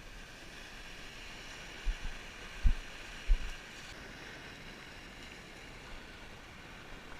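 Steady wash of wind and sea, with a few low thuds of wind buffeting the microphone about two to three and a half seconds in.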